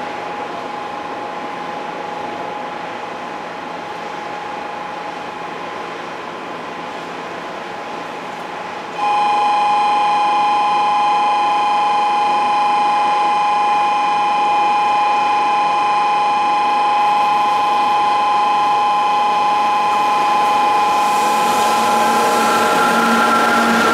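A steady two-note electronic warning tone, jumping louder and harsher about nine seconds in. Near the end the running noise of the passing EF66 electric locomotive and its container freight train rises over it.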